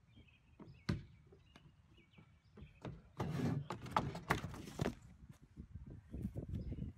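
Knocks and scuffs of a boy climbing onto a wooden deck railing and jumping off, with a sharp knock about a second in and a loud burst of rustling and thuds from about three to five seconds in as he leaps and lands.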